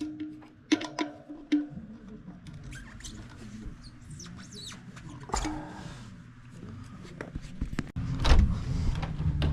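Metal tools or bike parts clinking and being set down: a few sharp clinks with a short ring in the first second and a half, then handling knocks and thuds, louder from about eight seconds in. Faint music plays in the background.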